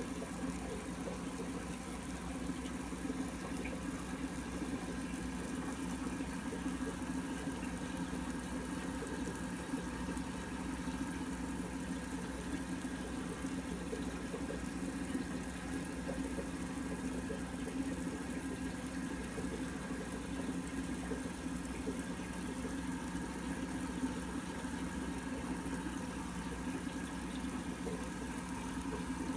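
Aquarium pump humming steadily: a low drone with a fainter, higher buzz over it.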